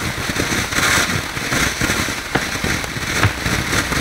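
Ground fountain fireworks spraying sparks: a steady hiss with dense crackling pops throughout.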